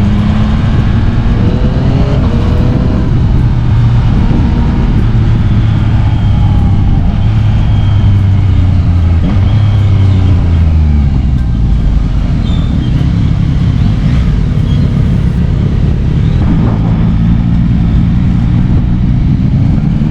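Yamaha XSR900's 890 cc inline-three engine running on the move. It holds a steady pitch, drops in pitch about ten seconds in as it eases off, then rises again as it accelerates near the end.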